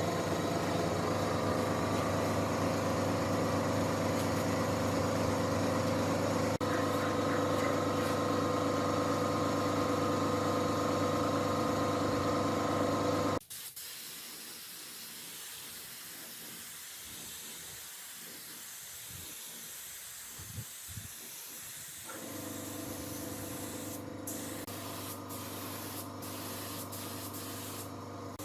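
Steady hiss of a spray gun spraying finish, over the steady hum of a motor. About halfway through the sound cuts off abruptly to a quieter hiss without the hum, and the hum comes back near the end.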